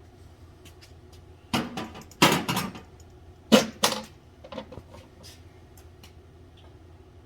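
Several sharp knocks and clatters, grouped between about a second and a half and five seconds in, over a steady low hum.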